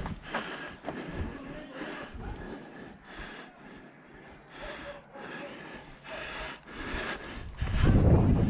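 A player's heavy breathing close to the microphone, about nine separate breaths spaced unevenly. A louder low rumble of movement starts near the end.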